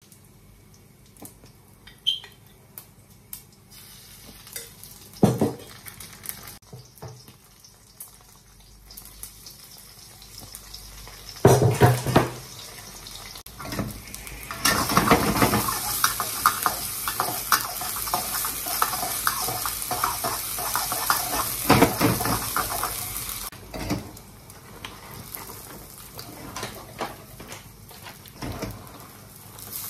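Stir-frying in a wok on a gas stove: a metal spatula scrapes and clinks against the pan while the food sizzles. There are a few scattered knocks at first and a louder clatter about twelve seconds in. Then come about nine seconds of steady sizzling with quick scrapes, which ease off near the end.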